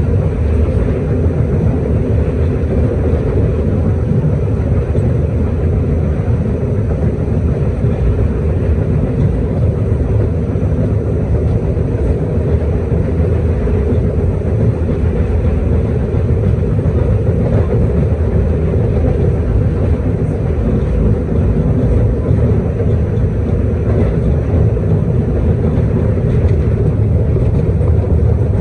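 1973 St. Louis-built R44 subway car running between stations, heard from inside: a steady, even rumble of the train in motion.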